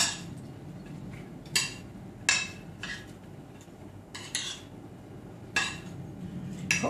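A metal spoon stirring a chopped walnut and celery mixture in a ceramic bowl, with a handful of sharp clinks at irregular intervals as the spoon strikes the bowl.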